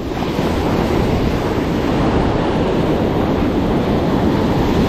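Ocean surf on a sandy beach: waves breaking close by and foamy wash rushing over the sand, a steady loud rushing noise.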